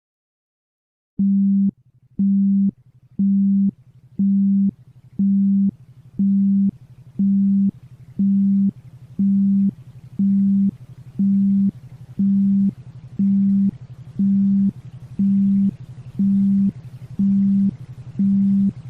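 Synthesized low tone pulsing on and off about once a second, each pulse about half a second long, over a steady lower hum. It starts about a second in, out of silence.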